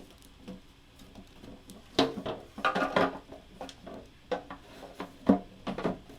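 Hard plastic model-kit parts of a 1/12 RX-78-2 Gundam being handled and fitted: a run of light clicks and knocks starting about two seconds in, the sharpest near the end.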